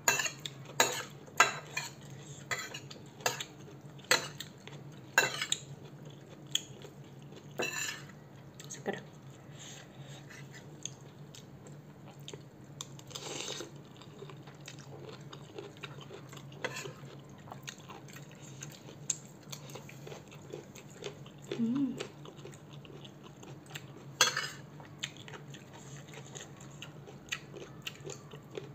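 Metal spoon and fork clinking and scraping against a ceramic bowl of spicy instant noodles, with close-up chewing; the clinks come thickest in the first several seconds. A slurp of noodles comes about 13 seconds in.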